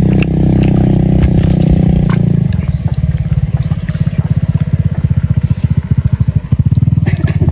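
A small engine running steadily with a fast, even low pulse. About two and a half seconds in, its upper tones drop away, leaving a lower pulsing beat, while birds chirp briefly above it.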